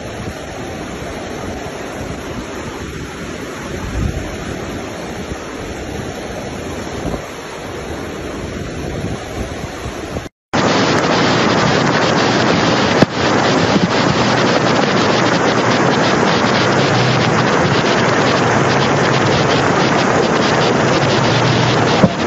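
Rushing flash-flood water with wind buffeting the microphone, a steady rushing noise. About ten seconds in it drops out for a moment and a louder, steadier rush takes over.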